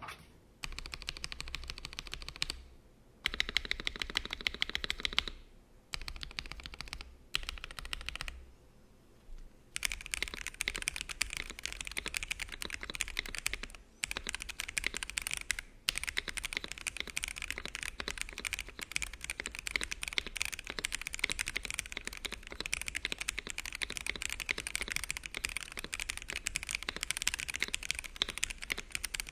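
Typing test on a gasket-mounted GAS67 mechanical keyboard fitted with AKKO Starfish switches: a rapid clatter of keystrokes. It comes in spurts with short pauses for the first ten seconds or so, then runs on as continuous fast typing.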